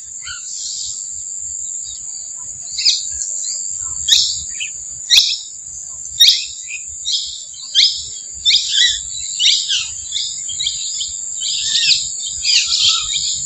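Birds chirping: many short calls, coming thick and fast in the second half, over a steady high-pitched insect buzz.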